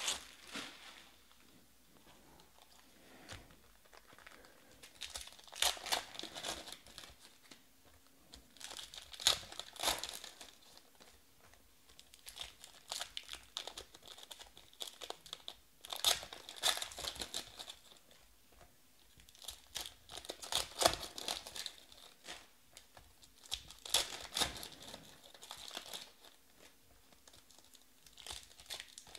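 Foil wrappers of Panini Select Baseball card packs crinkling and tearing as they are ripped open by hand, in bursts a few seconds apart.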